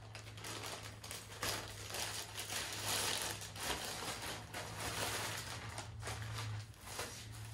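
Plastic packaging rustling and crinkling irregularly as a courier's plastic mailer bag is opened and a shirt in a clear plastic bag is pulled out. A steady low hum runs underneath.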